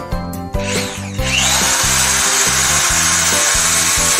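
Corded electric drill switched on about half a second in, spinning up over a moment and then running steadily at full speed with a high whine, held free with nothing in its chuck's way.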